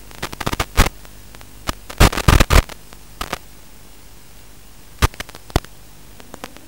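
Static hiss from an analog FPV video receiver, broken by loud crackling bursts as the radio link breaks up: a few in the first second, a dense cluster about two seconds in, and two more near five seconds.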